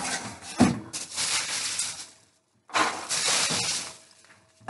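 Styrofoam packing peanuts rustling and crunching as hands scoop through them in a cardboard box, in two stretches with a brief silent break about halfway.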